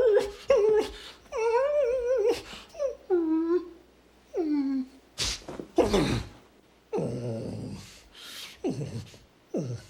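A dog whining and whimpering: a run of short whines, some wavering and some falling in pitch, broken by short breathy huffs.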